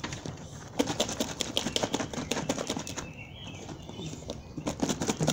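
Lidded plastic container of shrimp bait in minced garlic, anise seed and cherry Kool-Aid being shaken by hand: a fast rattling against the plastic, in two bouts, the second starting near the end.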